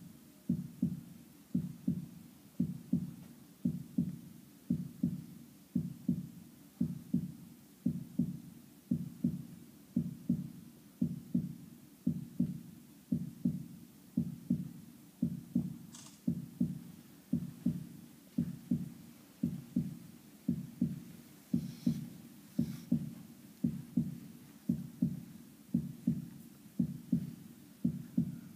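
Heartbeat sound effect: a steady, slow double thump, lub-dub, about once a second.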